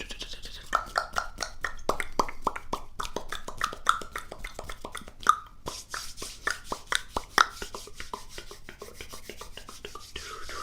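Close-miked ASMR mouth sounds: a quick, irregular run of wet clicks and pops, the pitch of each pop shifting a little.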